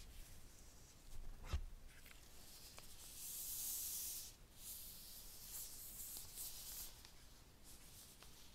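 Faint handling sounds as gloved hands lift an iPad Pro out of its cardboard box: a sharp tap about one and a half seconds in, a hissing rub for about a second a little after three seconds in, then soft rubbing and rustling.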